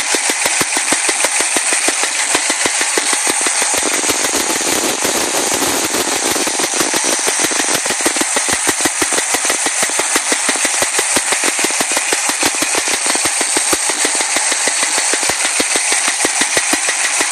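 Chevy Nova engine running with a loud, rapid, even knock, about six a second, which blurs briefly about four seconds in. The owner suspects a stuck lifter.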